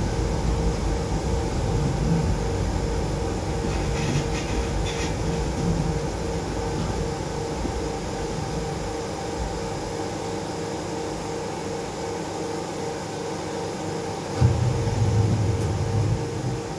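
Moscow monorail train heard from inside the car as it slows along a station platform. A low rumble fades over the first several seconds over a steady pulsing hum, and a sudden louder low rumble comes near the end.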